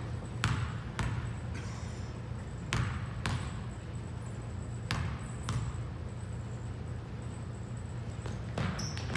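A basketball bouncing on a court floor, about eight separate bounces at uneven intervals, over a steady low hum.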